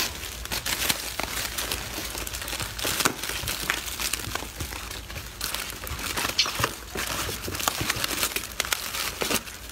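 Crinkly plastic snack wrappers rustling as monkeys grab and handle wrapped cakes from cardboard boxes: an irregular run of sharp crackles.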